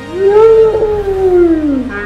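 A long howl: one voice swoops up, holds, then slides slowly down over about two seconds.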